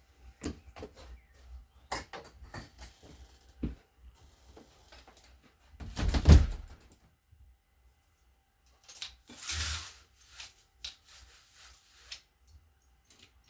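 Garden room door being shut: scattered knocks and footfalls, then a loud thud of the door closing about six seconds in, followed about three seconds later by a brief rushing noise.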